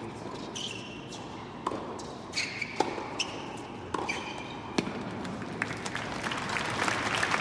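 Tennis rally on an indoor hard court: the ball is struck by rackets and bounces about once a second, with short squeaks of players' shoes on the court surface. Near the end a crowd's applause swells and cuts off suddenly.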